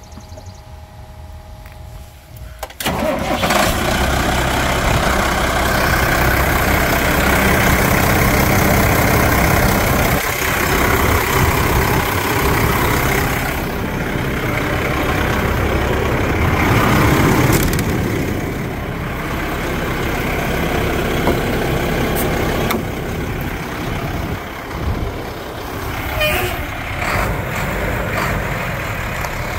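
A 1998 dump truck's engine starting about three seconds in, then running steadily, its level rising and falling a little.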